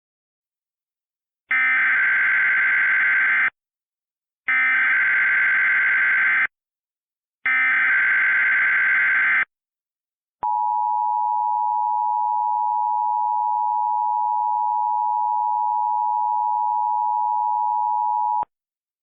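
Emergency Alert System header heading a flash flood warning. Three two-second bursts of SAME digital data tones, a second apart, are followed by the steady two-tone EAS attention signal, held for about eight seconds and cut off abruptly.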